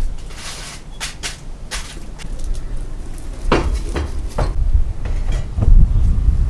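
A metal pan covered in foil knocking and clinking against a metal grill grate: a few light knocks in the first two seconds, then a second cluster of three sharp knocks around the middle, over a steady low rumble.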